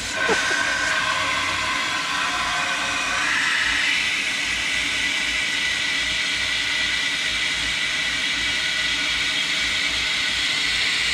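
Water from a garden hose nozzle rushing into a 1934 Ford radiator's top neck to flush it, with water pouring out of the bottom outlet: a steady hiss with a thin whistling tone that steps higher about three seconds in.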